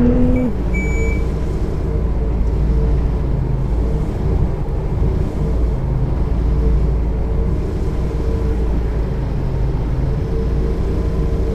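Bus engine dropping to a steady idling rumble about half a second in, with one short high beep about a second in.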